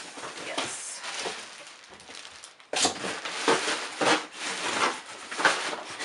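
Cardboard and plastic packaging rustling and crinkling as items are pulled out of a box, soft at first, then louder and busier from a sudden rustle a little under halfway through.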